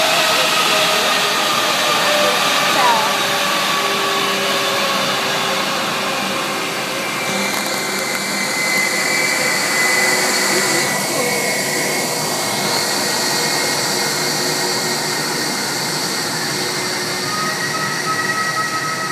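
Airbus A320 jet engines whining at taxi power as the airliner turns close by. A higher whine comes in about seven seconds in as the engines swing past, and the pitch shifts as the aircraft turns away.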